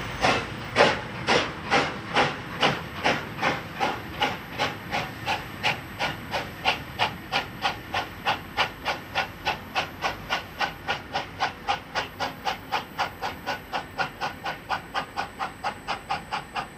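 Steam locomotive exhaust chuffing as it accelerates past, the beats quickening from about two to about three and a half a second and slowly fading.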